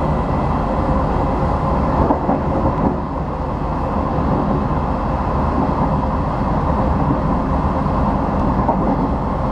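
Passenger train running, heard from on board: a steady rumble of wheels and running gear.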